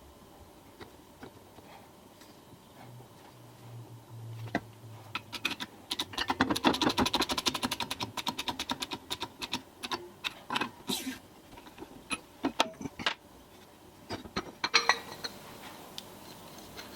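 Clicking and tapping of hand tools and metal parts being worked on a workbench, with a fast run of clicks from about six to eight seconds in and scattered knocks after that.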